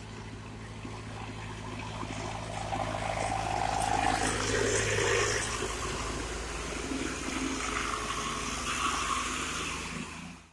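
Tractor diesel engines running as tractors climb the hill and pass close by, with a steady low hum under a rush of engine and tyre noise that is loudest about four to five seconds in. A car goes by in the second half, and the sound cuts off abruptly at the end.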